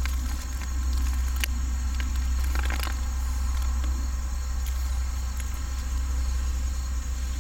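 Steady low background rumble, with a couple of faint short crackles about one and a half and three seconds in.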